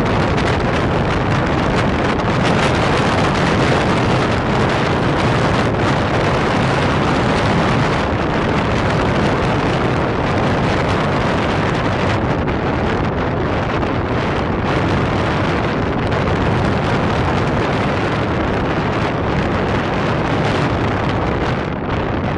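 Loud, steady wind buffeting the microphone.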